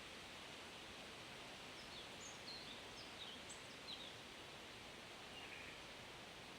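Soft wind rustling through forest leaves, with a songbird giving a quick run of short, high chirps in the middle and one more brief call near the end.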